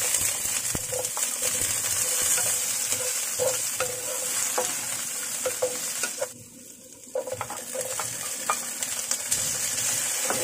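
Carrot and bell pepper pieces sizzling in hot oil in a nonstick frying pan, with a wooden spatula scraping and tapping against the pan as they are stirred. The sizzle drops away for about a second a little past halfway, then returns.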